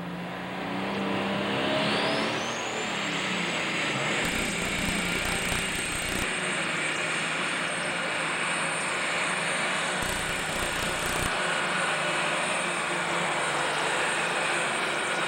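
Super Stock pulling tractor's alcohol-burning, turbocharged engine running flat out under load while dragging the weight sled. A high turbo whine climbs in pitch over the first few seconds, then holds steady with the engine.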